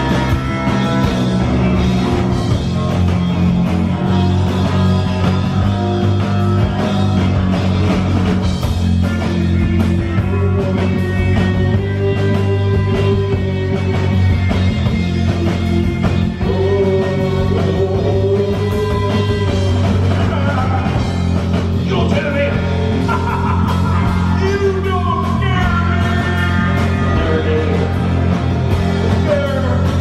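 Rock band playing live and loud: electric guitars, bass guitar and a drum kit, with a man singing.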